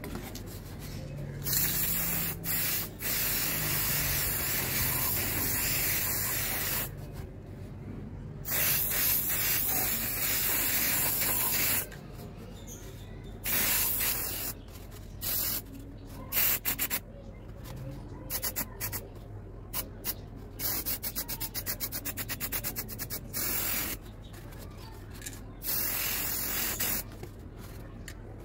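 Aerosol spray paint can hissing as it sprays black paint, in several long bursts of a few seconds each, then a run of quick short spurts around the middle, then a few more bursts.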